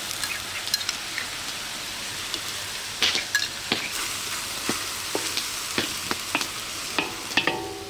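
Chopped onions and curry leaves sizzling in a large stainless steel wok, with a wooden spoon scraping and knocking against the pan as they are stirred. The sizzle is a steady hiss, and the spoon's knocks come several times in the second half.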